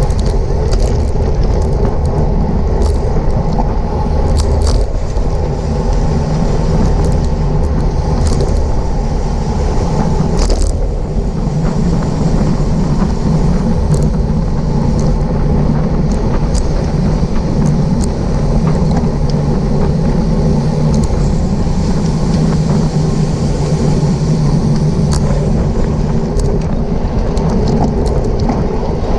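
Steady wind rush and road noise from riding fast in a bicycle race bunch, with heavy low rumble on the microphone and scattered short clicks.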